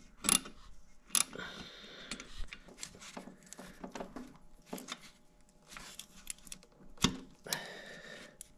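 Small metallic clicks and scraping as a radiator hose clamp is worked loose by hand and tool: a few sharp clicks, with two short stretches of rubbing and rustling among the hoses and fairing.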